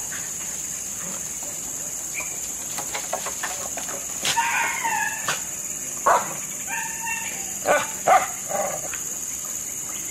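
Dogs barking and yelping as they play: a quick run of short, sharp calls in the second half, a few of them much louder than the rest.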